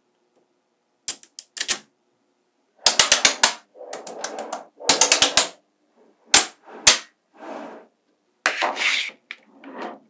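Small magnetic balls snapping and clacking together in quick clusters of sharp clicks, with softer rattling between the clusters.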